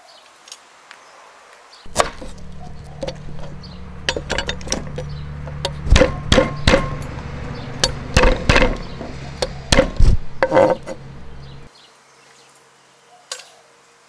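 Irregular sharp knocks and clinks, about twenty strikes packed between two and eleven seconds in, like chopping or pounding during kitchen work. A low hum runs under them and stops shortly before the end.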